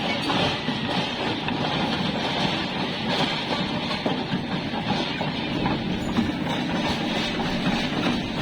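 Excavator running, its diesel engine going steadily under a dense, continuous mechanical clatter.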